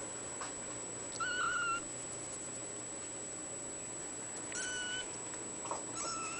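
Bluepoint bicolor ragdoll kitten meowing: three short, high-pitched mews, the first about a second in and the other two near the end.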